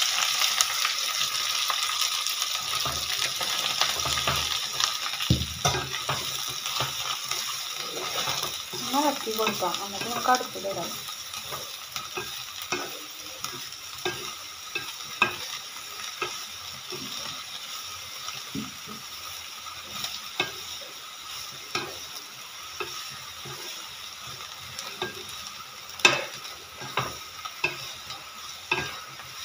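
Chopped leafy greens frying in hot coconut oil in a nonstick pan, stirred and turned with a flat spatula that scrapes and taps against the pan. The sizzle is strongest as the leaves first hit the oil and fades as they wilt; the spatula clicks go on throughout, with a sharper knock near the end.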